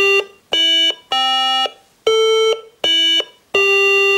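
Franzis MKI-3K16 synthesizer kit playing a slow run of plain square-wave beeps from its built-in speaker, about six separate notes of different pitch, each around half a second with short gaps, as a finger touches its metal-contact keyboard. A bare square wave beeper with no sound shaping.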